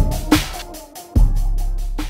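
Background music: an electronic beat with deep bass drum hits and quick, evenly spaced hi-hat ticks over a low bass line, without vocals.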